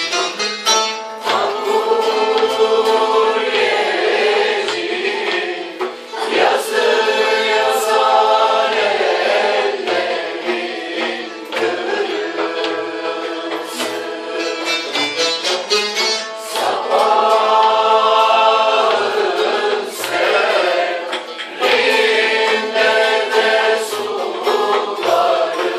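A class choir of men and women singing a song together in phrases, accompanied by bağlama (long-necked lute) and a hand drum keeping an even beat.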